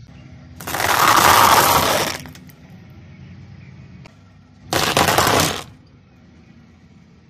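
Dry pasta cracking and crunching under a car tyre. There is one long crunch of about a second and a half, then a shorter one about five seconds in.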